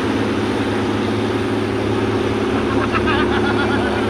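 Boat engine running steadily at a constant pitch, with voices around three seconds in.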